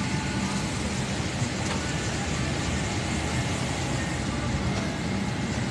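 Steady airliner cabin noise: the rush of the ventilation air, with a low hum underneath.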